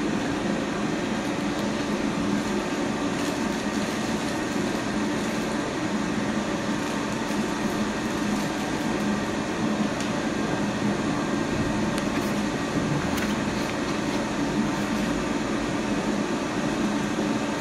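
Steady hum of workshop machinery: a constant low drone with a hiss over it, unchanging throughout, with a couple of faint clicks.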